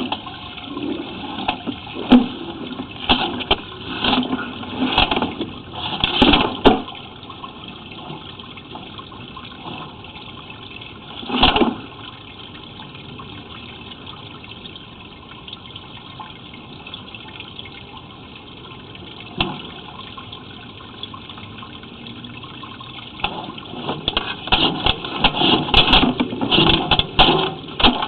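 Steady rush of water through a 4-inch cast iron sewer line under sewer camera inspection, with irregular knocks and scrapes of the camera and push rod in the pipe: a cluster in the first several seconds, a single one about eleven seconds in, and many more near the end.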